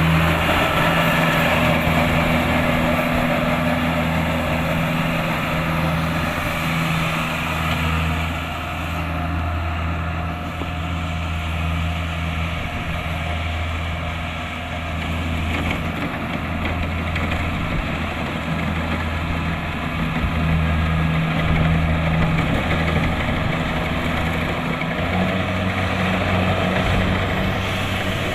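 Kubota DC-70 Plus combine harvester's diesel engine running steadily under the noise of its working machinery, its note stepping up slightly near the end.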